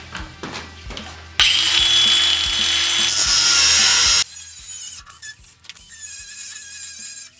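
Stark CAG 1800 cordless angle grinder cutting through a clamped steel bar with an abrasive cut-off disc. The cut starts loud about a second and a half in, and the sound turns quieter and thinner about four seconds in.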